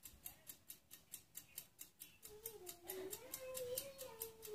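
Faint, fast ticking, about five even ticks a second. From about halfway through, a faint distant voice rises and falls over it.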